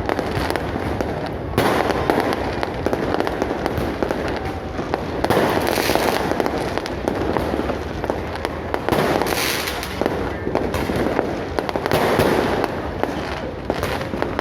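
New Year's fireworks going off in a dense barrage of bangs and crackling that swells again every few seconds.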